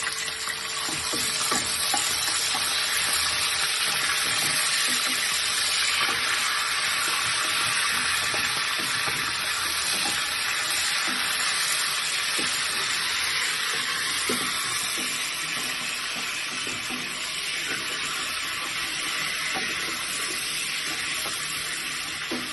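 Red onions and beef frying in hot oil in a pot, giving a steady sizzle that eases slightly toward the end. A few faint knocks sound through it.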